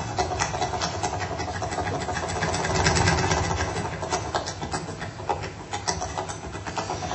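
Tap shoes striking a stage floor in a fast, continuous run of taps, without music.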